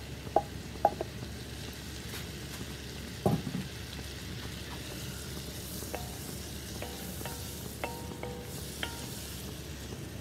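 Chopped onions and peppers sizzling steadily in melted butter in a pot on a propane camp stove, while they are stirred. Sharp metallic clinks as a spoon scrapes them out of a stainless bowl in the first second, a knock about 3 s in, and a run of short ringing knocks of the spoon against the pot near the end.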